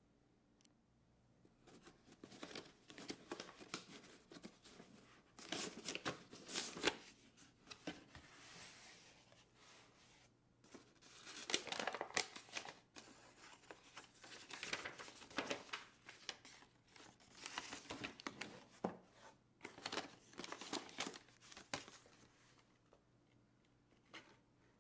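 Cardboard box being opened and its printed paper wrapping and inserts handled: irregular bursts of paper rustling, crinkling and tearing. They start about two seconds in and stop a couple of seconds before the end.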